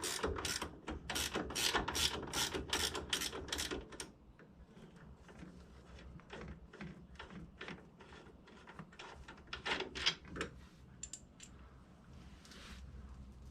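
A ratcheting wrench clicks rapidly and evenly, about three clicks a second, as it turns the ATV's shock bolt, and stops about four seconds in. After that come scattered, lighter metal clicks and taps.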